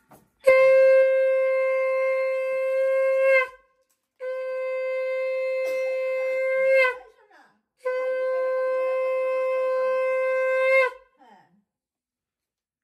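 Conch shell (shankha) blown in three long, steady blasts of about three seconds each, with short breaths between; each blast dips slightly in pitch as it ends.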